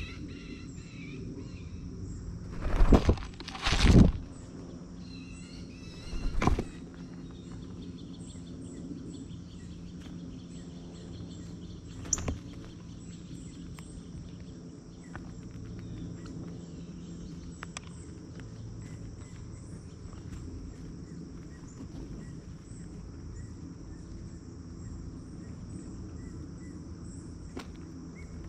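Outdoor backyard ambience: a steady high insect drone with scattered faint bird chirps. Three loud, short scuffing knocks come about three, four and six and a half seconds in, with a sharp click near twelve seconds.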